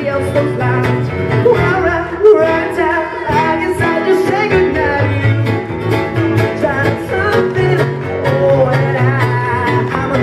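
A man singing a song live into a microphone, accompanied by a strummed acoustic guitar and a steady low bass line, amplified through the venue's sound system.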